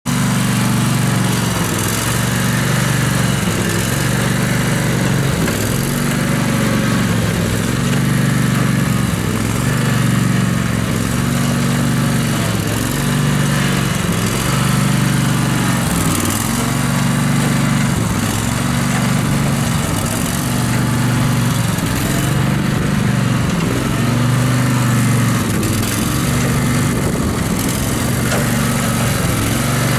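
Engine of an Exmark 52-inch six-speed gear-drive walk-behind mower running steadily while the mower is driven along under its own power.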